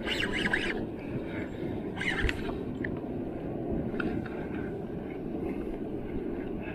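Steady rushing noise of wind and sea on an open fishing kayak. Two short rasping bursts come right at the start and about two seconds in, and a few light clicks follow.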